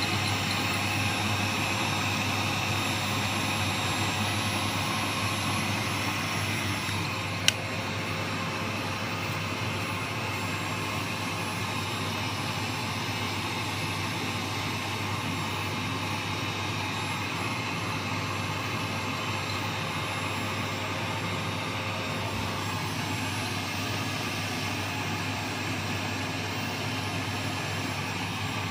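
Vacuum cleaner running steadily with a continuous rushing whine. A single sharp click comes about seven seconds in, after which it runs slightly quieter.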